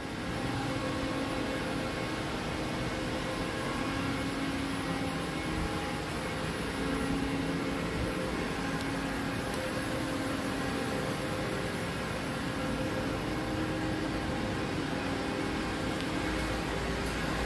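Steady hum and whir of a powered-up DMG Mori NLX2000SY CNC turning center and its auxiliaries, with a few steady tones over an even machine noise. A deeper rumble joins near the end.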